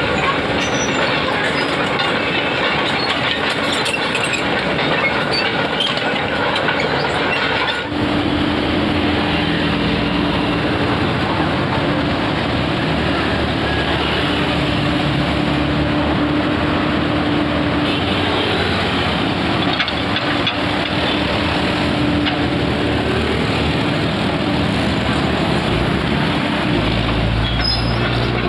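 Komatsu PC130F hydraulic excavator running steadily at working revs, its diesel engine and hydraulics carrying a steady hum through dense mechanical noise.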